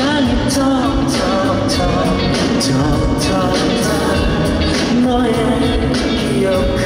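Live pop song performance: a singer carrying the melody over a full band with a steady drum beat.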